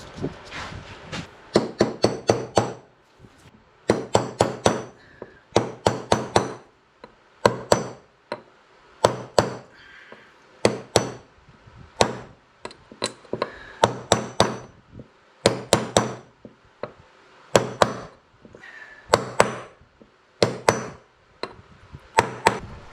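Hammer tapping on a socket used as a driver to seat a seal in a hydraulic cylinder: sharp metallic strikes in quick groups of two to five, repeated every second or two.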